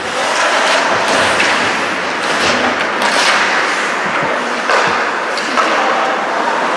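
Ice hockey in play: skate blades scraping across the ice, with sticks clacking and a few sharp thuds against the boards.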